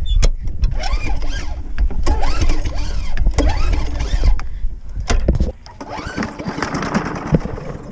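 Push mower's small gasoline engine pull-started and running, then cutting out about five and a half seconds in.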